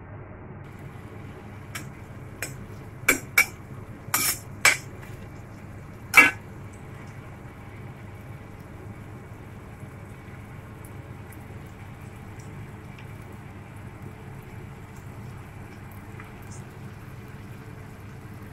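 A slotted metal spoon clinking and clanking against a stainless steel wok: a run of sharp metal knocks in the first six seconds, the loudest about six seconds in. A steady low hum runs under it.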